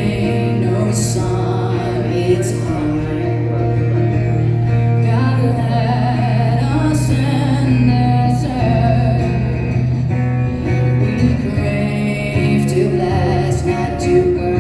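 Live acoustic performance of a song: singing with acoustic guitar accompaniment.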